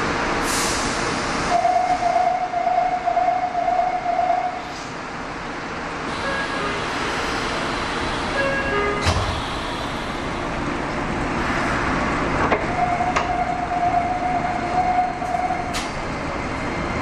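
Inside a Nagoya Municipal Subway Tsurumai Line train at a station stop, over the car's steady background rumble. A pulsing electronic warning tone sounds twice, for about three seconds each: a second or two in, and again near the end. A low thud comes about nine seconds in.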